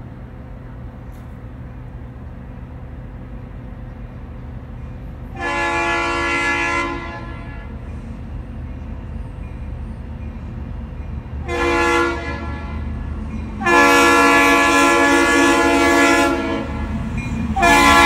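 CSX SD60M freight locomotive's multi-chime air horn blowing four blasts for a grade crossing as it approaches: a long one, a short one, a longer one about three seconds long, and a fourth starting near the end. A steady diesel rumble runs underneath.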